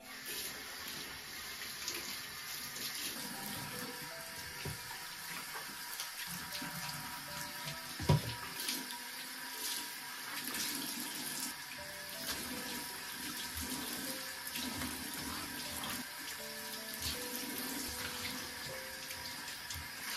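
Tap water running steadily into a ceramic bathroom washbasin as it is scrubbed and rinsed, with one sharp knock about eight seconds in.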